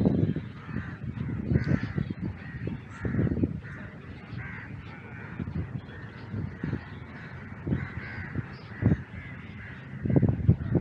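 Birds calling repeatedly in short harsh calls, over irregular low rumbles that are loudest just after the start and again near the end.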